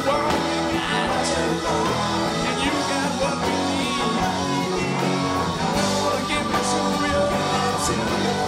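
Live rock band playing: electric guitars over bass guitar and drums, with singing.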